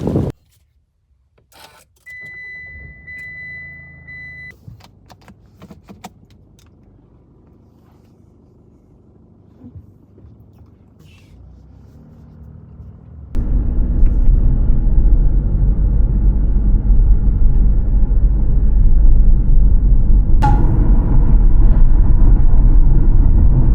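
Inside a Mitsubishi Delica van: a steady electronic warning chime beeps for about two and a half seconds among clicks and a jingle of keys, then after a quiet stretch a loud low vehicle rumble starts abruptly and carries on.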